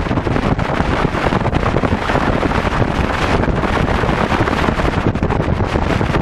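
Heavy wind buffeting the microphone as a bass boat runs at speed, with its Yamaha V-Max outboard motor running underneath in a steady rush of noise.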